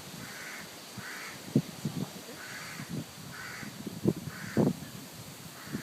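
A bird giving repeated short, harsh calls, about six of them roughly a second apart, with several low thuds among them.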